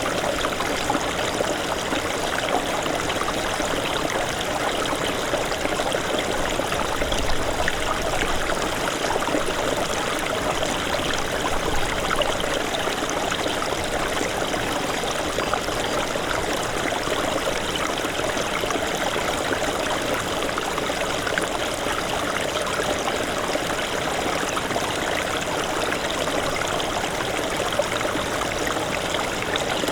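Small mountain stream of snowmelt running over rocks, a steady babbling and trickling rush of water.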